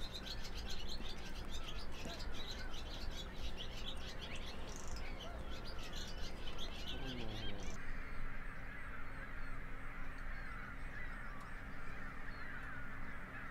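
Many birds chirping busily in quick, overlapping calls. About eight seconds in, the sound changes suddenly to a quieter, lower bird chatter over a faint steady hum.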